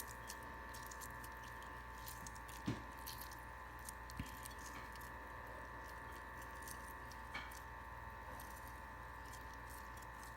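Faint soft squishing of a mung bean sprout salad being handled in a bowl, with a few light knocks, over a steady electrical hum.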